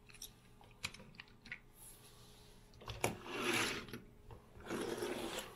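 Die-cast toy cars and a small plastic trailer being handled and set down: a few light clicks and taps, with two short stretches of rustling rubbing.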